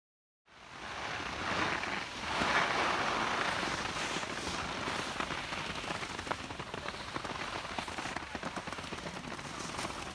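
Skis scraping and hissing over packed snow, a steady crackly rush dotted with small clicks that starts about half a second in.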